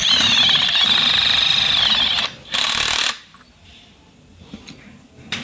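A power tool running in rapid hammering strokes for about two seconds, then a shorter burst about half a second later, on the steering tube of an electric scooter during a headset bearing replacement.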